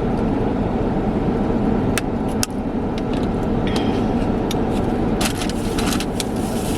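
Steady low rumble of a car's running engine heard inside its cabin while parked, with a few sharp clicks about two seconds in and a cluster of clicks and crinkles between five and six seconds in.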